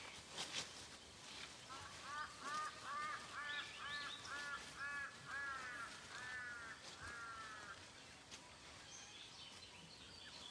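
A bird calling in a run of about fifteen harsh, arched notes, about three a second and slowing toward the end, over a faint bush background with small high chirps.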